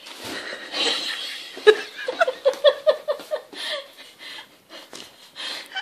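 A person laughing: a quick run of short, pitched bursts about two seconds in, then softer, scattered bursts.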